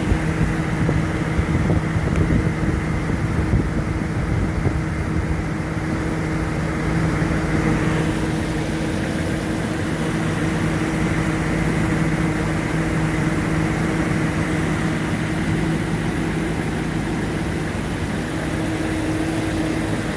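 Supercharged engine idling steadily on its first run after a supercharger rebuild, with no knocking heard so far.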